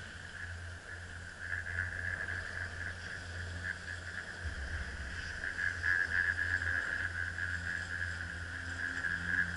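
Chairlift machinery running: a steady high whine over a low hum, growing louder as the chair nears the top terminal.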